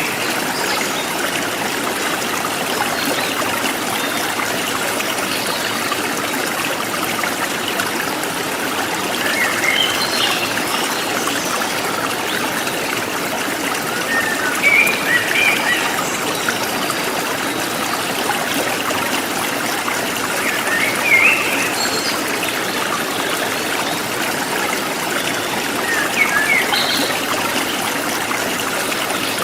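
A forest stream trickling and flowing steadily, with a bird giving brief chirps about every five or six seconds above the water.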